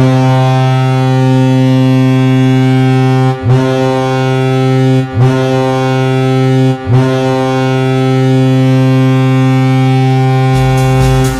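A loud, steady low horn tone that is cut off briefly three times, its pitch sliding up each time it resumes.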